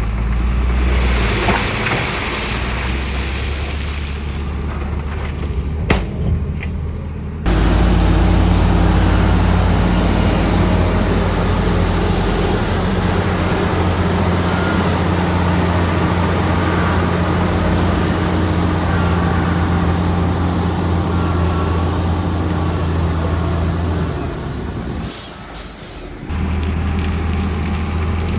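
Heavy diesel engine of earth-moving machinery running steadily under load, with a low hum and a noisy clatter over it. The sound jumps abruptly about seven seconds in and again near the end, as clips are cut together.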